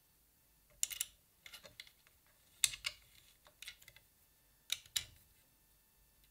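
Light metal-on-plastic clicks and taps of a hex key and small screw against a 3D-printed plastic arm as the screw is fumbled into its hole, in about five short clusters roughly a second apart. The screw is too short to reach its thread.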